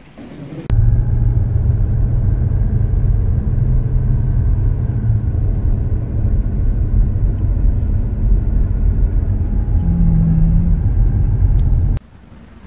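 Car driving along a narrow country road, heard from inside the cabin: a loud, steady low rumble of engine and tyres that starts abruptly about a second in and cuts off suddenly near the end.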